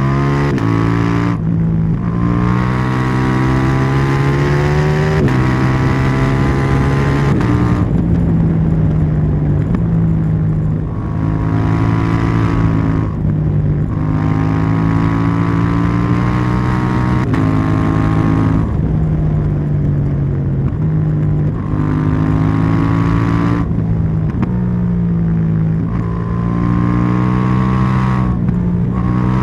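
KTM 790 Duke's parallel-twin engine and exhaust under way, repeatedly rising in pitch through the revs and then dropping sharply at each gear change, about every two to four seconds, with brief off-throttle dips between pulls.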